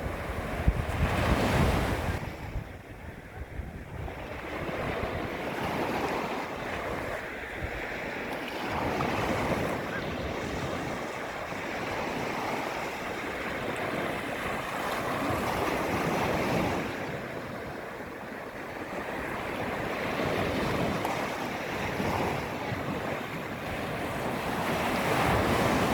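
Small waves lapping against the shoreline, the wash swelling and fading every few seconds, loudest about a second in and again near the end.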